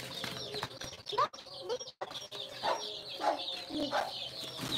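A flock of chickens: many chicks peeping in a continuous high chorus, with louder, lower clucks and calls breaking in every second or so.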